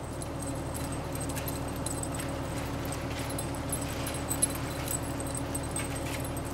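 Two Siberian huskies pulling a kicksled along a snowy trail. Faint light ticks and jingling sit over a steady low hum, with one sharper click a little past halfway.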